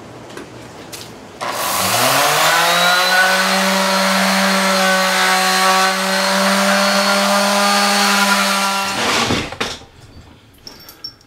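Random-orbital (DA) sander with a 320-grit pad sanding the face of a cast iron skillet: it starts about a second and a half in, its pitch rising quickly to a steady running tone, and stops about nine seconds in.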